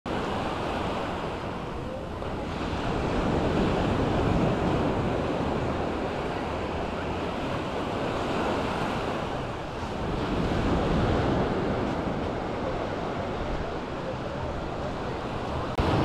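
Small waves of the Mediterranean surf breaking and washing up on a sandy shore, swelling and easing over several seconds, with wind buffeting the microphone.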